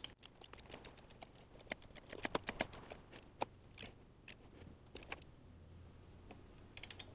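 Faint ratchet clicks from a click-type torque wrench, in short irregular runs, as a bolt on the brake booster vacuum pump is run down toward 18 ft-lb.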